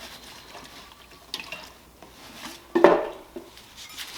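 Hard objects handled and set down on a bench: a light click a little over a second in, then a louder knock with a brief clatter near three seconds.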